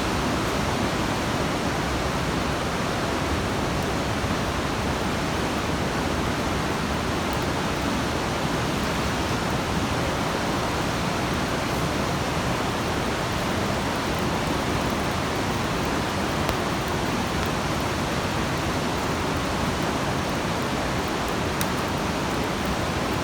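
The Coquihalla River rushing through its gorge: a steady, unbroken sound of fast-flowing water.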